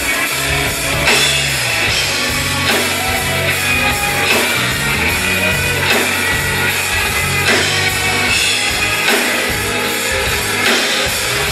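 Live band playing electric guitars, bass and a drum kit, amplified through a club PA.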